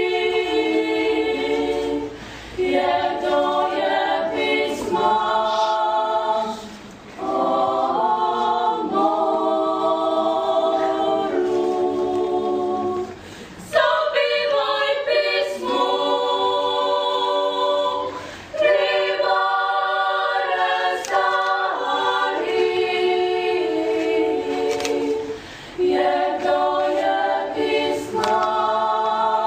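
Young klapa group singing Dalmatian a cappella in close multi-part harmony, treble voices holding long notes in phrases of a few seconds with short breaks between them.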